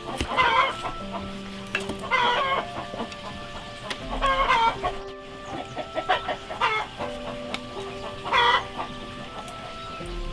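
Chickens clucking, one short call about every two seconds.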